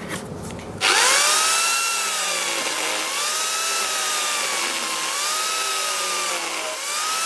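Angle grinder fitted with an Arbortech Mini Turbo cutter starts about a second in, its whine rising as it spins up. It then cuts a tenon in the end grain of a log, the pitch dipping and recovering again and again as the cutter bites into the wood.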